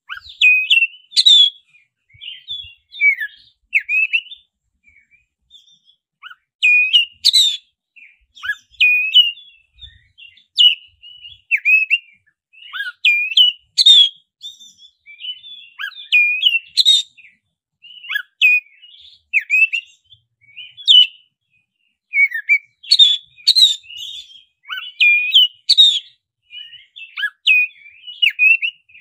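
Black-breasted oriental magpie-robin (kacer dada hitam) singing: loud, short whistled phrases of quickly rising and falling notes, some of them sharp and very high, repeated every second or two with brief pauses between.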